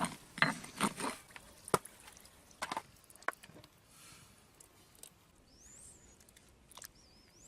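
Rustling with a few sharp knocks and snaps in the first three seconds, then two high, wavering chirps near the end, from a small bird.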